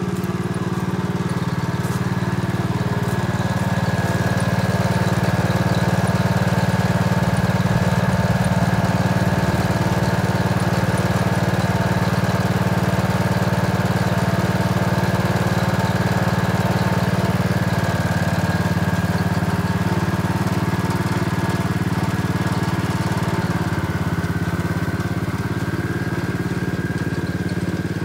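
Gravely walk-behind two-wheel tractor's engine running steadily under load while its rear attachment roughs up the lawn soil. The pitch and loudness sag slightly near the end.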